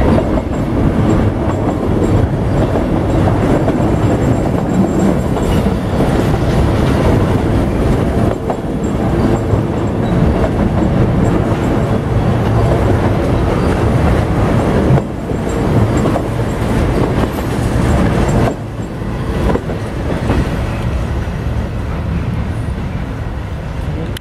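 Autorack freight cars rolling past close by, their steel wheels running on the rails in a steady, loud rumble. The sound eases off near the end as the last car passes and moves away.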